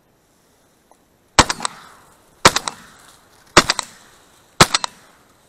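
Four loud shotgun shots about a second apart, fired at ducks in flight, each followed by a quick echo.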